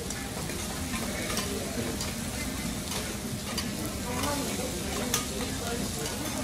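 Food sizzling on a hot steel teppanyaki griddle, with a knife and spatula scraping and tapping against the plate as green vegetable stems are cut and turned. Several sharp metal clicks stand out over the steady sizzle.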